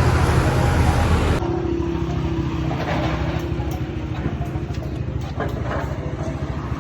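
A motor vehicle engine running, with a loud rushing noise for about the first second and a half before it settles to a steadier sound.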